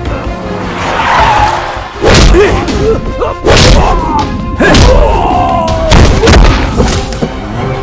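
Movie fight sound effects: a string of heavy punch and body-hit thuds and booms, with a body slamming to the ground near the end, over dramatic background music.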